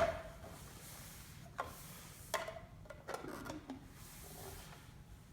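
Parts of an electric burr coffee grinder being handled and fitted: a sharp knock at the start, then a few light clicks and some rubbing about two to three seconds in. The grinder is not running.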